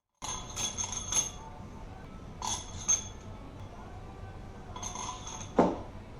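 Steel head studs and washers clinking and ringing as they are handled and set in: a quick run of light metallic clinks, two more a couple of seconds later, another few near the end, and one loud short sound that falls sharply in pitch.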